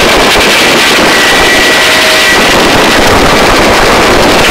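Helicopter in a hover during a hoist: a steady, loud rush of rotor and engine noise with a thin high whine running through it.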